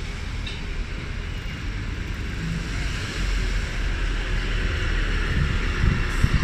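Alexander Dennis Enviro400 double-decker bus driving past close by, its engine and tyre noise growing louder about halfway through as it passes and pulls away.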